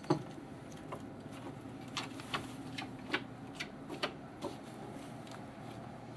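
Poker chips clicking as they are handled at the table: a run of light, irregular clicks that stops about two thirds of the way through.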